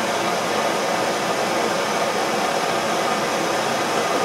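A steady hiss of rushing air or gas.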